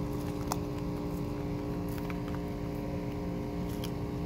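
A steady machine hum with a constant pitch and a low rumble beneath it. Over it come a few faint, crisp clicks as a sulcata tortoise bites and chews raw zucchini sticks.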